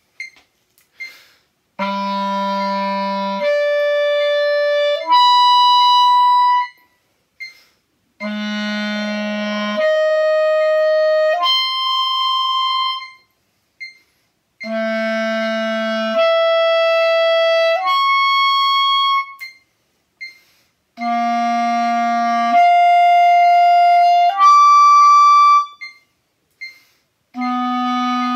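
Clarinet playing slurred register exercises. Each set is three held notes: a low chalumeau note, a leap of a twelfth to the clarion, then a further leap into the altissimo register. A short rest follows each set, and each new set starts a semitone higher. Four full sets are heard and a fifth begins near the end.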